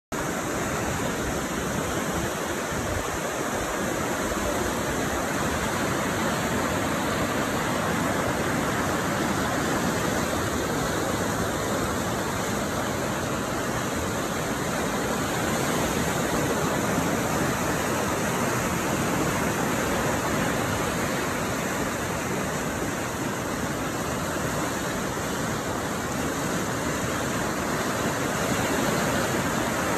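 Fast-flowing clear water rushing steadily over rocks.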